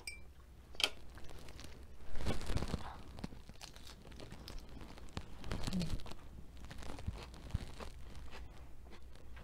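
A crisp lettuce-leaf wrap of sautéed spinach and mushrooms bitten into close to the microphone, with a loud crunch about two seconds in, then crunchy chewing.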